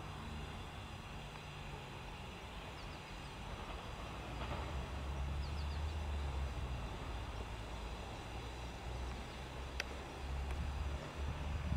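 Low rumble of an approaching class 45 electric locomotive hauling a fast train, growing louder from about four seconds in.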